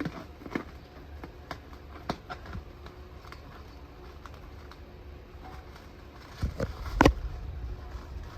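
Scattered small clicks and taps from handling and opening up the packaged half rack and its parts, with a louder knock about seven seconds in.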